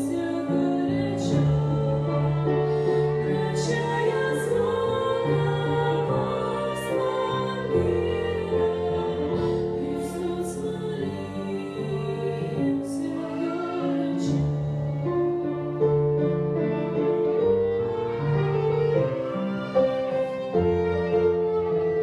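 Music: bowed strings, violin and cello, playing held notes that change every second or two.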